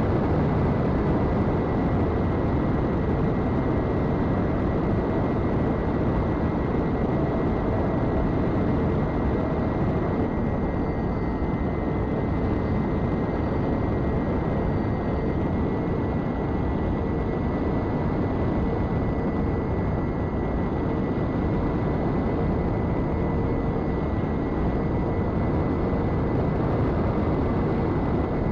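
Eachine Airloader RC plane in cruise flight, with a steady rush of wind over its onboard camera. Under it runs the steady whine of its twin electric motors and propellers at cruise throttle, holding a near-constant pitch.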